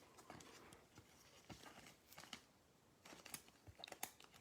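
Faint scattered light ticks and rustles of a trading card being handled and slid into a plastic card sleeve.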